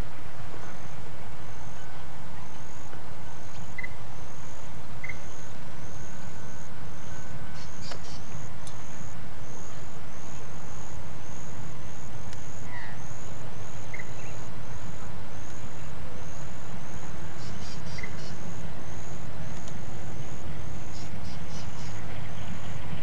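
Level crossing warning bell ringing in a steady, quick pattern of about two strikes a second, warning of an approaching train, over a steady low rumble, with a few bird chirps.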